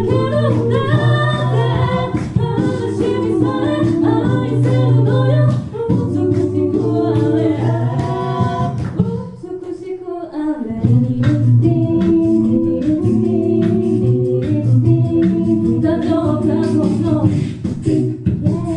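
A cappella group of six voices singing close harmony into microphones, with vocal-percussion beatboxing keeping a steady beat under the sung parts. About nine seconds in, the bass and the beat drop out for a second or so, leaving the upper voices, then everything comes back in.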